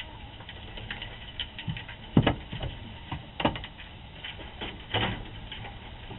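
Raccoon scrabbling and knocking about among plastic chicken nest boxes: scattered scratches and light clicks, with a louder thump about two seconds in and further knocks a little after three and five seconds. Heard through a security camera's microphone over a steady hiss.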